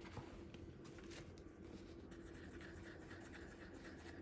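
Faint scratchy strokes of a Stampin' Write dual-tip marker scribbling on scratch paper, plainer from about halfway in. It is a test of the marker, which has partly dried out.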